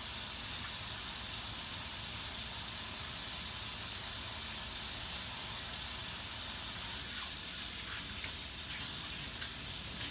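Kitchen faucet running a steady stream of hot water into the sink while hands are rubbed and rinsed under it.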